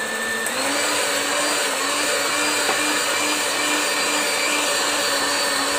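Moulinex electric hand mixer running steadily, its beaters whipping an ice-cream base in a steel bowl. The motor's pitch steps up a little about half a second in.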